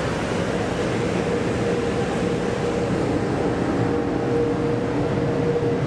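Steady hum and hiss inside a passenger car of an E655-series train, with a faint steady mid-pitched tone through it.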